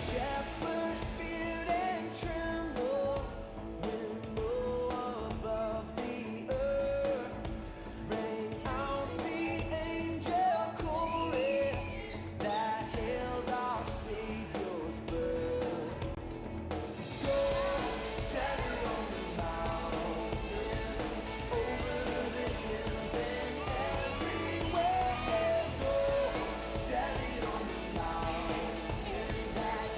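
Group of young children singing a Christmas song along with a pop-style backing track, the accompaniment growing fuller about seventeen seconds in.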